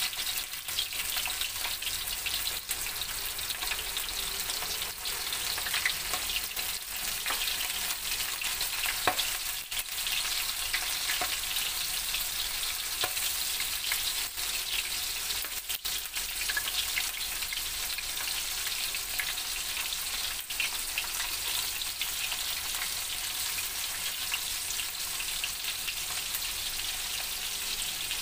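Flour-coated chicken hearts deep-frying in hot oil: a steady sizzle with many small crackles.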